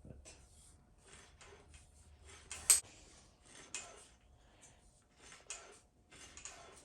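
Freshly rebuilt mountain bike rear shock being compressed and released by hand, its damper oil swishing through the valving with each stroke in a series of short, irregular rushes, with one sharper knock near the middle. It is a hand test of the damping after a rebuild with new oil and a serviced IFP, and the damping sounds good.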